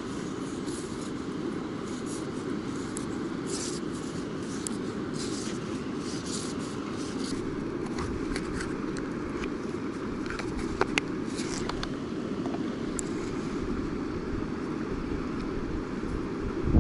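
Close handling of fishing tackle and a jacket: scattered rustles and small ticks as hands work the line and lure of a spinning rod, with two sharp clicks about eleven seconds in, over a steady low rushing noise.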